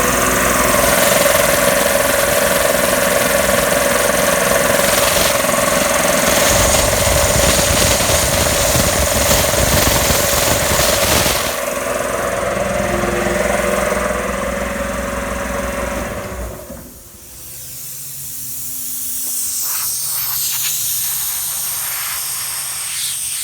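Two-stage air compressor pump running loudly and steadily, its note changing about halfway, then shutting off about two-thirds of the way through. Compressed air then hisses from a leaking pipe, which the owner puts down to the pipe having been bent.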